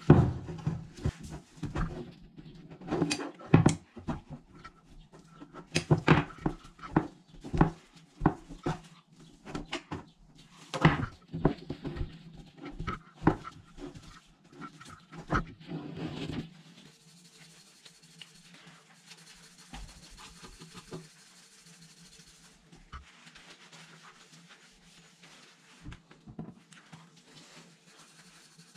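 Gloved hands working on a mountain bike suspension fork: irregular knocks, clicks and rubbing of the metal fork parts against each other and the bench. The handling noise stops a little over halfway through, leaving only a faint steady hum and a few soft taps.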